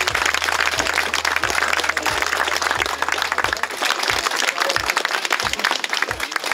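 Crowd applauding, a dense patter of many hands clapping. Under it runs a steady bass beat from music, about three beats every two seconds.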